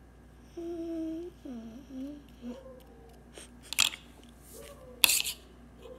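A young girl humming wordlessly: one held note, then a few short sliding notes. Two brief, sharp hissy sounds come near the end, the second one the loudest.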